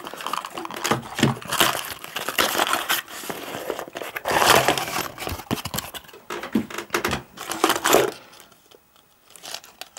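Packaging around a metal fishing spoon being torn open and unwrapped by hand: irregular bursts of rustling, dying down about a second before the end.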